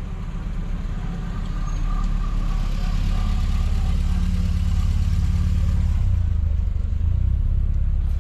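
Old cars driving slowly past at low engine speed, a steady engine rumble that grows louder over the first few seconds as a car comes close, then holds.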